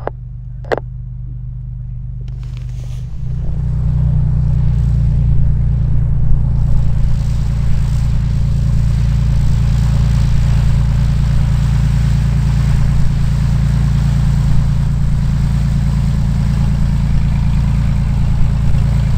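Cessna T182T Turbo Skylane's turbocharged six-cylinder Lycoming engine and propeller running steadily at taxi power, growing louder about three seconds in as the plane taxis by. A short click just under a second in.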